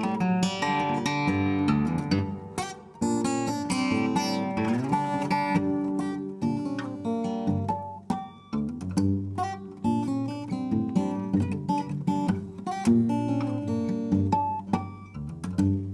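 Solo acoustic guitar fingerpicked, with bass notes under a melody line. One note slides up in pitch about five seconds in.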